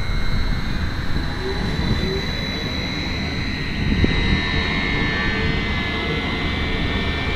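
A giant electric blender's motor and blades spinning up to speed, a steady mechanical hum with a high whine that grows stronger about halfway through.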